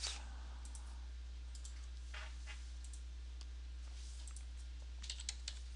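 Faint computer mouse clicks and keystrokes, scattered, with a small cluster of clicks about five seconds in, as a width value is entered in a software dialog and confirmed. A steady low electrical hum sits underneath.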